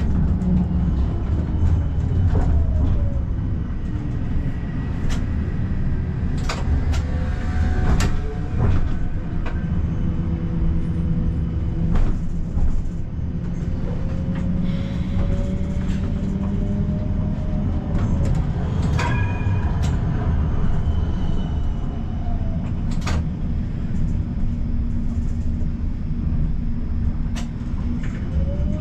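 Siemens Combino tram running on its rails: a steady low rumble with the traction motors' whine gliding down in pitch in the first few seconds and rising again around the middle and near the end, as the tram slows and speeds up. Scattered sharp clicks and knocks are heard along the way.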